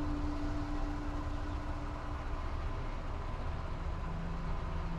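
Jeep engine idling: a steady low rumble, heard from inside the parked vehicle.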